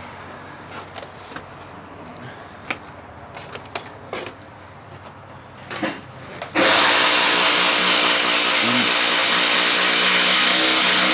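Scattered light clicks and knocks, then about six and a half seconds in a loud electric motor-driven tool starts suddenly and runs steadily.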